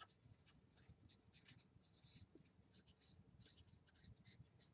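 Faint scratching of a felt-tip marker writing on a paper pad, in quick irregular strokes several times a second.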